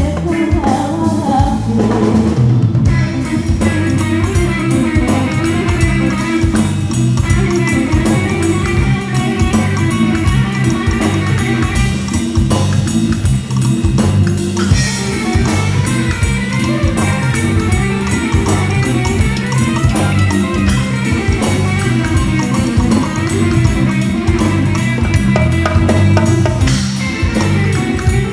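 Live band music: a woman singing over electric guitar, bass guitar and drum kit, with the electric guitar to the fore in the later part.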